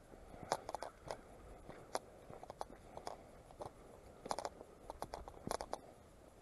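Footsteps crunching on a stony gravel track, an irregular run of steps with a few louder crunches.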